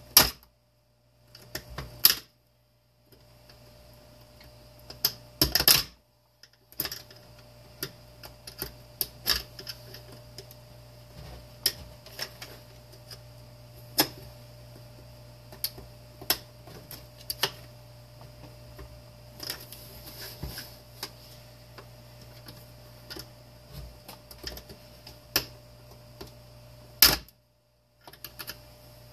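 Two Phillips screwdrivers prying at a plastic space-heater housing: irregular sharp clicks, taps and knocks of metal tips and plastic parts, with a few louder knocks near the start and one near the end.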